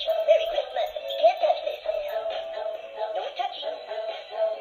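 Singing poop emoji plush toy playing a song through its small speaker: a continuous synthetic singing voice with music, thin and tinny.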